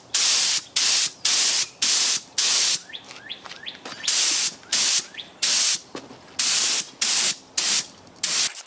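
Gravity-feed spray gun spraying a toner of raw umber dye in lacquer and thinner onto wood, in short bursts about two a second as the trigger is pulled and released. About three seconds in the spraying pauses briefly and faint bird chirps come through.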